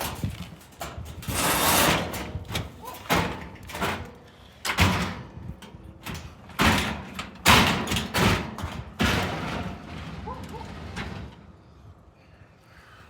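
Objects being moved and dropped: an irregular run of bangs, clatters and scraping slides, busiest in the middle and dying down near the end.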